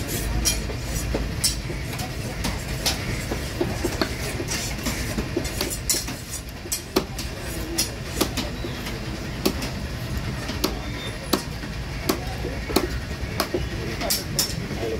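Heavy knife chopping through a fish into steaks on a wooden block: sharp knocks at irregular intervals, about one or two a second, over a steady low background rumble.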